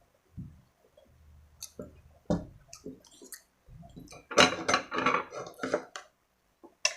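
Close-up wet eating sounds: scattered smacks and clicks of chewing, then a denser run of wet chewing and smacking about four seconds in.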